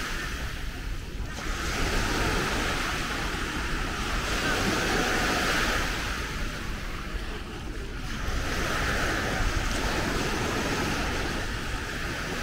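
Small sea waves breaking and washing up a sandy shore, the surf swelling and easing about every six seconds, with wind buffeting the microphone.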